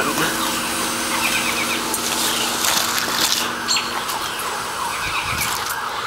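Outdoor 3-ton heat pump unit running with a steady hum, while emergency sirens wail in the distance.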